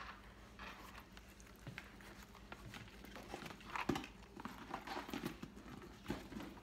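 Soft rustling and small clicks of a handbag and its paper care card being handled, with one louder knock about four seconds in.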